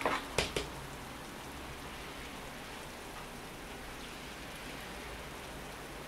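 Steady spring rain falling. In the first second, a plastic scoop makes a few quick scrapes as it drops potting mix into a plastic pot.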